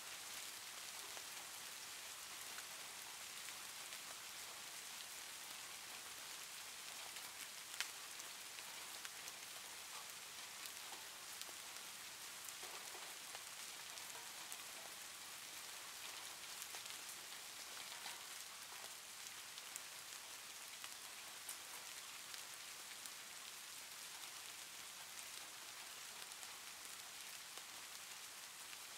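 Faint steady rain-like hiss, strongest in the high range, with scattered light clicks and one sharper click about eight seconds in.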